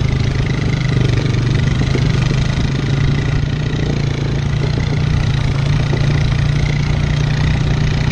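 Four-wheeler (ATV) engine running steadily at low trail speed under load as it tows a dirt bike by a strap, a constant low hum with rough rattling noise over it.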